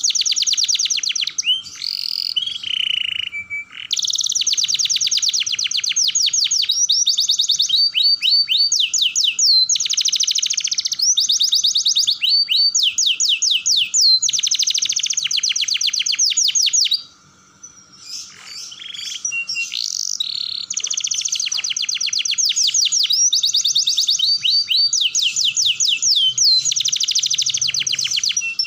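Domestic canary singing a continuous rolling song: long trills of rapid repeated notes that shift in pitch from phrase to phrase. There is a brief pause a little past the middle.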